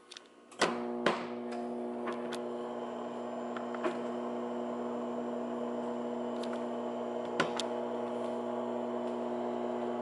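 Microwave oven starting with two clicks about half a second and a second in, then running with a steady hum and a few faint ticks.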